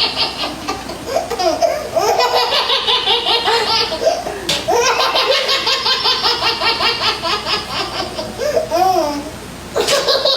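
A young child laughing hard in several long runs of rapid, high-pitched giggles, with brief pauses for breath between them.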